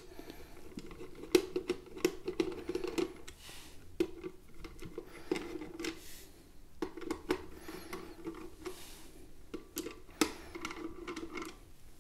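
A screwdriver loosening the captive screws in the bottom plate of an Intel NUC mini PC: several short spells of scraping turns, with small clicks between them.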